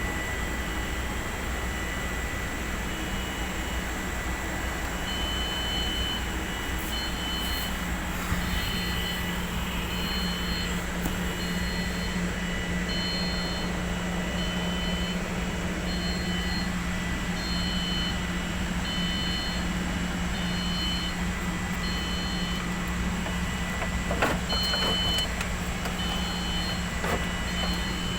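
A machine running with a steady low hum and a constant high whine. From about five seconds in, a high electronic beeping repeats roughly once a second, and a few clicks come near the end.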